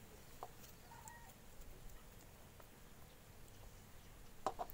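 Very quiet hand handling of coconut laddu: the sticky mixture pressed into balls by hand and set down on a plate, with faint scattered clicks and a couple of small clicks near the end.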